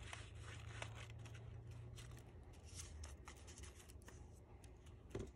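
Faint rustling and a few light ticks of stiff paper flower petals being pressed together and handled, over a low steady hum.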